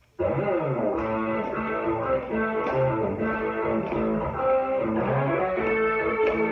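Recorded music starts abruptly just after the beginning: a guitar-led song with a steady beat.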